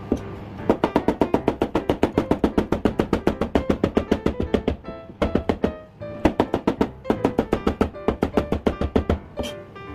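Kitchen knife rapidly chopping ginger into mince on a cutting board, about seven or eight strokes a second, with two brief pauses a little after the middle. Background music plays underneath.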